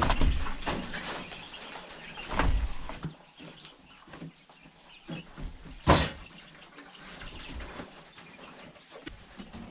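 Caged birds chirping, with three sharp knocks from handling cages or gear: one at the start, one about two and a half seconds in, and the loudest about six seconds in.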